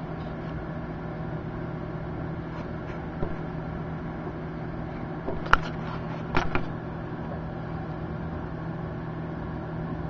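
Microwave oven running with a steady hum, Mediterranean fan palm seeds heating inside. A few sharp clicks break in, the loudest about five and a half seconds in and another about a second later.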